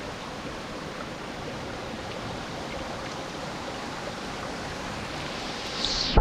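Steady rush of creek water falling over rocks, with a brief sharper hiss near the end.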